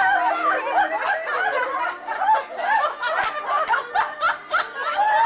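A group of adults laughing and calling out together, several high voices overlapping in continuous laughter, with a few short sharp taps among it past the middle.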